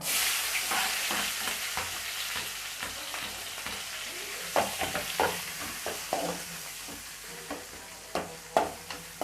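Finely chopped onions hitting hot oil with whole spices: a sudden sizzle that sets in at once and slowly dies down. From about halfway, short knocks against the pan as they are stirred.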